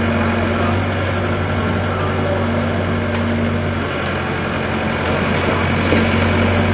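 Steady low hum of a standing Tobu 300 series electric train, its onboard equipment running, with a constant low drone and a fainter steady tone above it.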